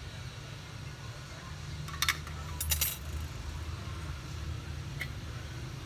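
A few small, sharp metallic clinks of small repair tools: a pair about two seconds in, a cluster just before three seconds and a single one near five seconds. A steady low hum runs underneath.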